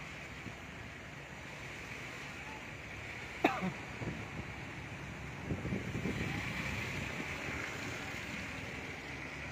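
Steady rushing noise from a vehicle crossing a bridge over a flooded river, with road noise, wind and the fast floodwater blended together. A sharp click comes about three and a half seconds in.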